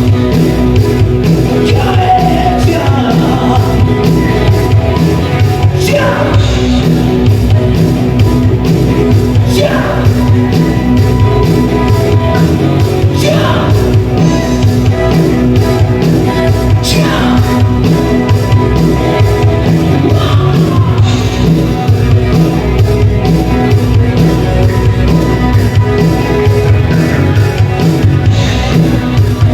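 Live band playing loud rock/pop music with a steady driving drum beat and no clear sung lyrics, with falling sliding notes every few seconds.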